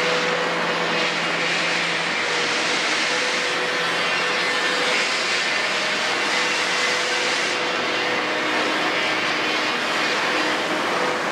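Kobelco 350 NLC crawler excavator working: its diesel engine runs steadily under load as the machine swings back from the truck and digs.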